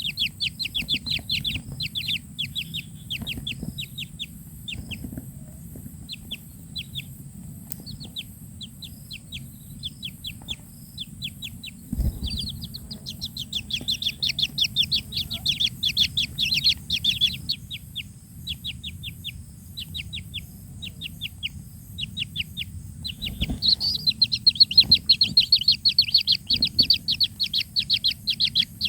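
Kingfisher chick giving rapid, high chirping calls in runs of fast repeated notes, with short pauses between runs, loudest near the end. Two dull knocks come about twelve seconds in and again near the end.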